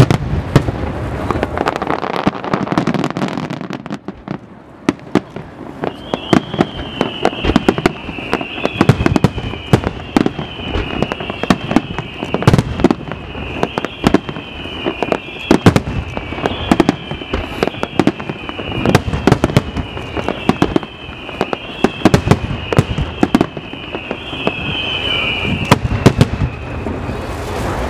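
Fireworks display: aerial shells and rising comets going off in a rapid, uneven barrage of sharp bangs and crackles. From about six seconds in until near the end, a high whistle wavers down and up over and over above the bangs.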